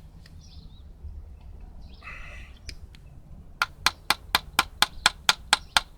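Faint handling noises, then from about three and a half seconds in a run of sharp, evenly spaced clicks, about four a second.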